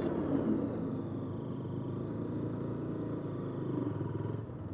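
Motorcycle engine running steadily as the bike is ridden at low speed, heard from on the bike with road rush, swelling slightly near the end.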